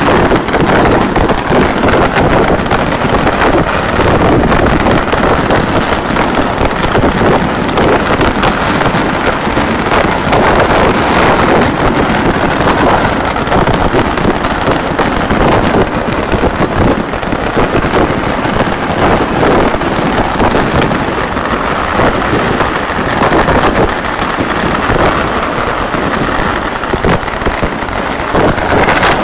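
Fireworks and firecrackers going off in a dense, unbroken barrage of crackles and bangs.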